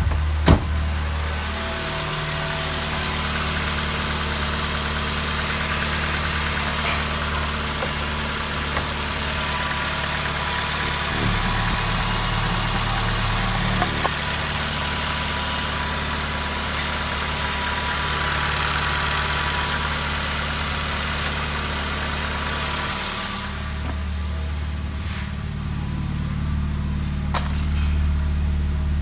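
Peugeot 306's 1.6-litre TU5JP (NFZ) eight-valve four-cylinder petrol engine idling steadily, heard close around the engine bay, with one sharp click about half a second in.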